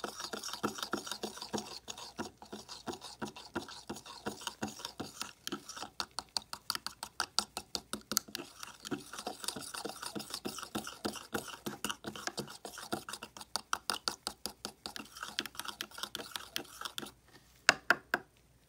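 Metal spoon stirring a wet mica-powder highlighter mix in a plastic cup, scraping and clicking against the cup in a fast, even rhythm of several strokes a second. The stirring stops near the end, followed by a few sharp clicks.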